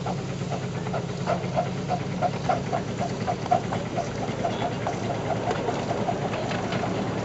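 Miniature live-steam locomotive on a ground-level ride-on railway, running as it pulls a train of passenger cars. It makes a quick regular beat, about three a second, over a steady low hum.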